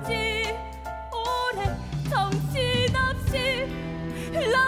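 A woman singing a slow, emotional musical-theatre ballad, holding notes with vibrato over instrumental accompaniment.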